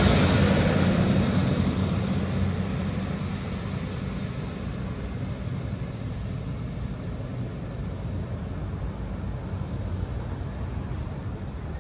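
Class 156 diesel multiple unit pulling away: the low engine drone is loud at first and fades steadily as the train moves off.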